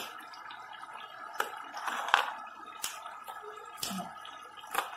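Dry, crisp pork cracklings rustling and crunching as fingers stir and squeeze them in a pan, with a handful of scattered sharp crackles.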